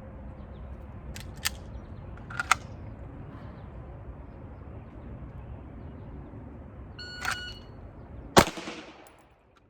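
Shot timer beeps, and about 1.4 seconds later a single pistol shot cracks, with a short echo trailing off. A few faint clicks come earlier.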